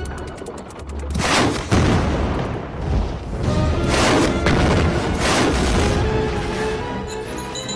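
Cartoon action music with about four loud booms of explosions between about one and five and a half seconds in.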